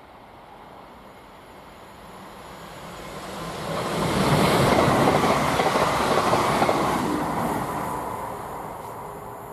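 Siemens Class 350 Desiro electric multiple unit passing by: wheel-on-rail noise builds as it approaches, is loudest for about three seconds as it goes past, then fades away as it recedes.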